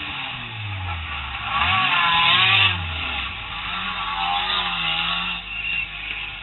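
Rodeo stock car's engine heard from inside the car: revved once about a second and a half in, the pitch climbing and falling back, then settling to a steadier, lower running note.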